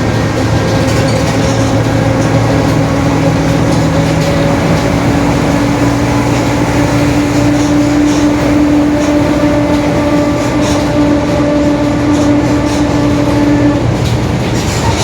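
Ride inside a Mercedes-Benz OF-1721 city bus on the move: steady diesel and road rumble with a loud humming whine from the differential. The whine creeps slightly up in pitch and stops a second or so before the end.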